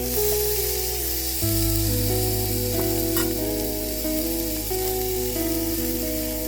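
Food sizzling steadily in a hot frying pan, with background music playing over it.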